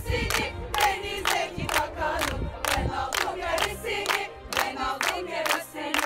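A group of mostly women's voices sings a chant together while clapping hands in time, about two claps a second.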